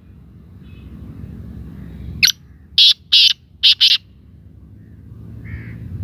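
Black francolin calling: a sharp click followed by four loud, harsh, rasping notes in quick succession, about two to four seconds in, over a low rumble. A fainter short note comes near the end.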